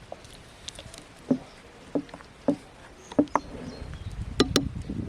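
A series of short, sharp knocks and clinks, about six of them at irregular spacing, the last two close together and the loudest.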